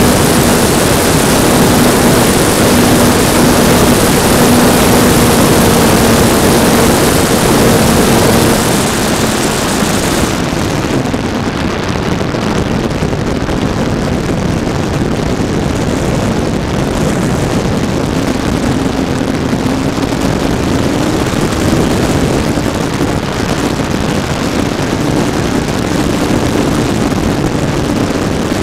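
Onboard sound of an E-flite PT-17 Stearman radio-control model's electric motor and propeller in flight: a steady hum with wind rushing over the airframe. About a third of the way in, the hum and the wind hiss drop; later a slightly higher hum comes back.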